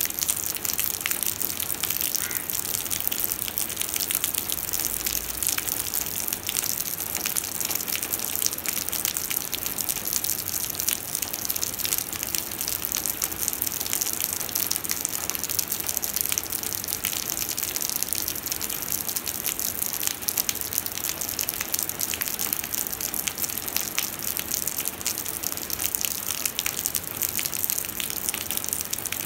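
Heavy rain falling steadily into a shallow puddle on pavement: a dense, even patter and hiss of drops splashing into standing water.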